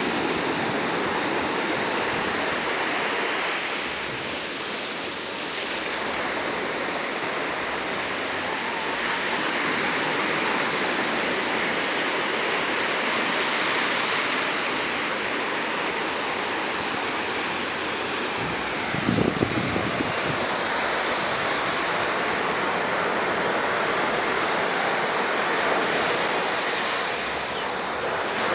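Sea surf washing onto a sandy beach: a steady rush of breaking waves that swells and eases slowly. About two-thirds of the way through there is a brief louder low burst.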